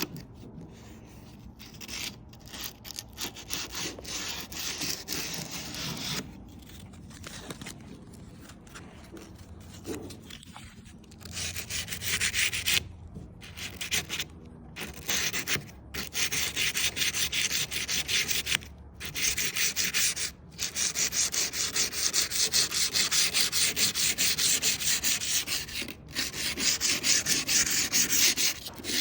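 Plumber's aluminium-oxide emery cloth rubbed rapidly back and forth along the rough-cut edge of a Tesla Cybertruck's stainless steel body panel, a scratchy sanding in bursts with short pauses, louder from about twelve seconds in. It is the sound of deburring the sharp panel edge to a slight radius.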